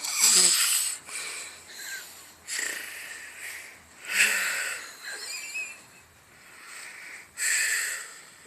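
Snoring: irregular, noisy snorting and wheezing breaths, the loudest at the start, just after four seconds in and near the end, with a faint wavering whistle about five seconds in.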